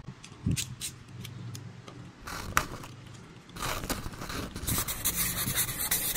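Utility knife blade scraping and slicing through thin cardboard in short strokes, a few faint clicks at first, then denser and louder scraping from about halfway; near the end a marker tip rubs over the card.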